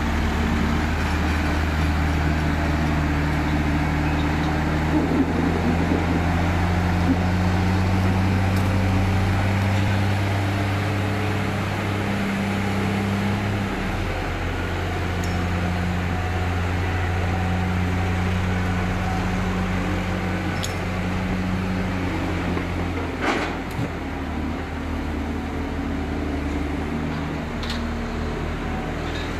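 Tractor diesel engine running under varying load while it levels a silage clamp with a rear buckrake; the engine note shifts several times as it climbs and works. There is a single sharp knock about two-thirds of the way through.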